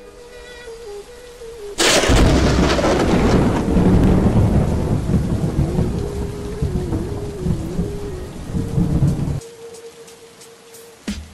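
A thunderclap about two seconds in, followed by a long rumble with the hiss of heavy rain pouring down. The sound cuts off abruptly about nine seconds in.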